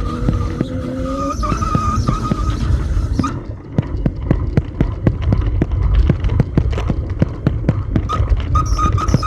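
Bicycle rolling over a rough surface: a continuous low rumble with a rapid, irregular run of knocks and rattles. A high, steady squeal sounds in the first three seconds and returns briefly near the end.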